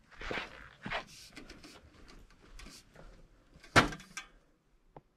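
Handling noise: a few rustles and light knocks, then one sharp, loud knock a little under four seconds in and a faint click near the end.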